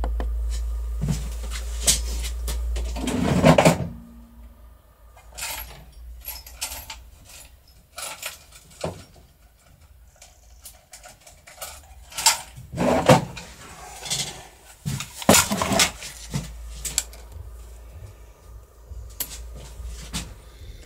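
A low rumble for the first three seconds or so, then scattered faint knocks and clicks of small metal parts and drawers being handled off-camera while a screw is searched for, a few louder clatters in the middle.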